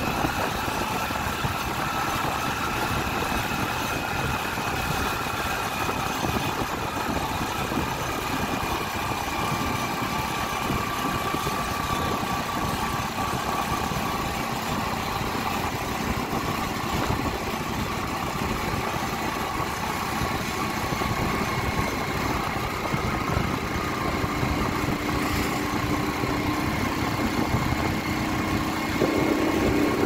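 Motorcycle engine running steadily while riding, heard from the rider's seat under a steady rush of wind and road noise. A low hum grows louder in the last few seconds.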